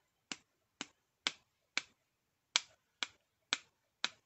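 Metal scissors clicking about twice a second, eight sharp clicks with a brief pause in the middle, as they are worked over the card to spatter ink droplets for a droplet effect.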